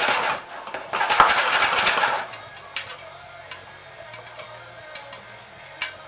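Stainless pot with a glass lid shaken on the stovetop: popcorn rattles and clatters against the pan and lid in two bursts over the first two seconds or so. After that come a few sharp, separate pops of kernels bursting in the hot oil.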